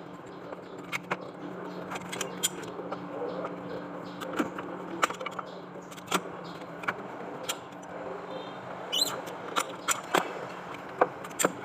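Scattered sharp clicks and knocks of hand tools and parts being handled during repair work on the vehicle, over a steady low hum.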